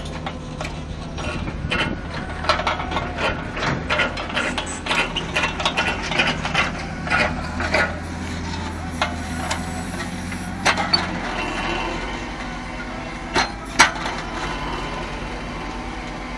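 Diesel engines of heavy construction machinery (a backhoe loader with an earth auger and an excavator) running, with frequent clanks and knocks. The knocks come thick and fast at first and then thin out to a few sharp ones, and the engine note changes about two-thirds of the way through.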